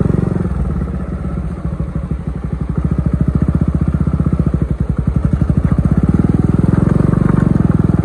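A 125 cc single-cylinder motorcycle engine running under throttle with regular firing pulses. It eases off about a second in, dips again briefly near five seconds, and pulls steadily harder after that.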